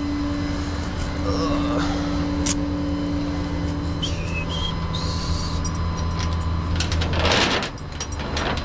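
Flatbed tow truck's engine running with the winch engaged: a steady whine from the winch drive over the engine hum stops about halfway, as enough chain has been let out. A short loud rushing hiss comes near the end.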